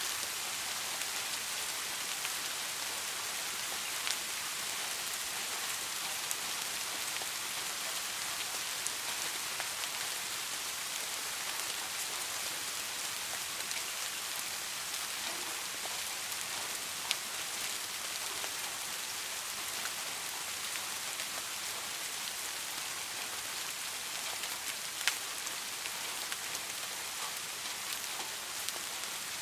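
Steady rain falling, an even bright hiss with a few louder single drop ticks scattered through it.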